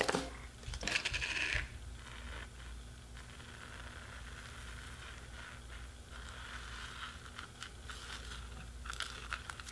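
Foamy slime made of a little glue and a lot of shaving cream being squeezed out of a cup, its bubbles crackling and popping. The crackling is loudest about a second in, then goes on faintly, with a few sharper pops near the end.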